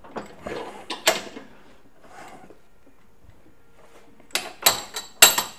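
Bench vise wound in as a press, forcing a new bushing into a VW bus rear trailing arm. The screw and bushing creak and scrape for the first second or so. About four seconds in come four sharp metal clanks of the vise's sliding handle bar knocking against its end stops.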